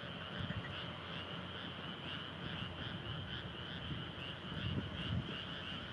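Chorus of frogs calling in a steady, pulsing rhythm of about three calls a second, with a low rumble underneath.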